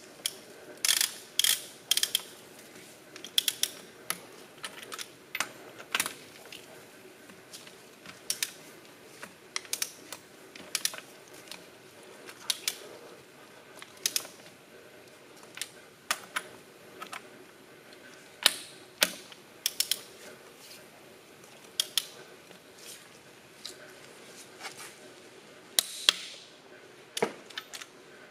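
Ratcheting torque wrench on a connecting-rod cap bolt, clicking in short runs every second or two as the handle is swung back and forth to tighten the bolt to 130 foot-pounds.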